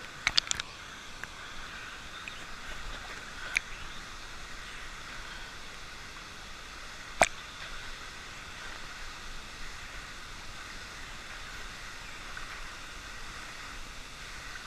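Steady rush of a waterfall and flowing water, broken by a quick cluster of sharp clicks near the start, another click a few seconds in, and one louder sharp click about halfway through.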